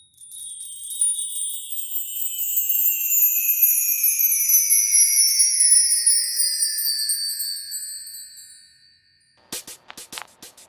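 A sparkling, chime-like intro sound effect glides slowly downward in pitch and fades out over about nine seconds. Near the end an electronic drum beat starts with evenly spaced hits.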